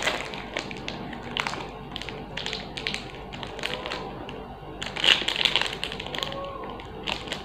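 A small plastic snack wrapper crinkling and crackling as it is handled and opened by hand, in irregular bursts of rustles.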